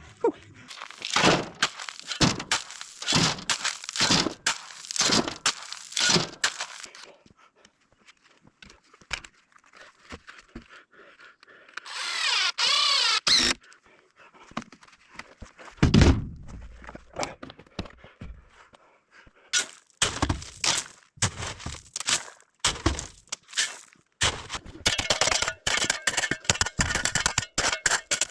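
A series of irregular knocks and clunks, a short wavering whine about twelve seconds in, a heavy thud about four seconds later, then a quick run of rapid clicks and knocks near the end.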